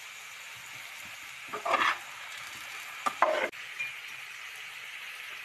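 Squash and string beans sizzling in a frying pan with a steady hiss, broken by two louder scrapes of stirring about one and a half and three seconds in.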